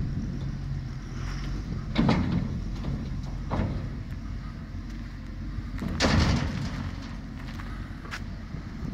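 John Deere 1110D forwarder's diesel engine running steadily while its high-tip bin is lowered hydraulically, with heavy clunks: loud ones about two seconds in and about six seconds in, lighter ones in between and near the end.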